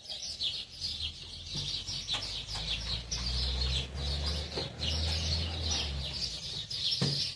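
Many small birds chirping all at once in a dense, unbroken chorus of high chirps. A low hum swells in the middle and fades a second before the end.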